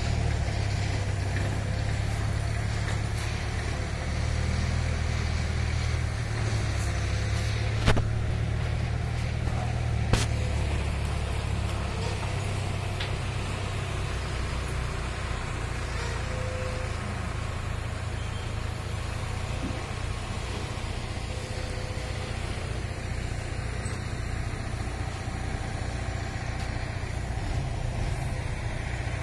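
A steady, low engine rumble, with two sharp clicks about two seconds apart roughly a third of the way in.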